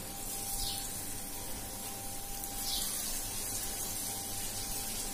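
Onion pakoda batter deep-frying in hot oil in a kadai: a steady sizzle, as small handfuls of batter are dropped into the oil.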